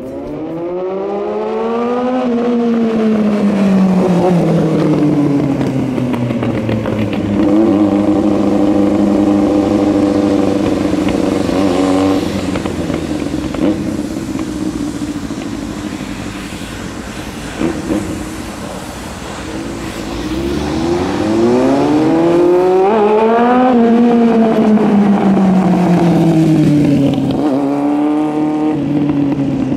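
Yamaha R1 inline-four engine free-revved at a standstill. The revs climb sharply and then fall back slowly near the start, hold fairly steady for a while, and climb and fall again about two-thirds of the way through, with a short blip near the end.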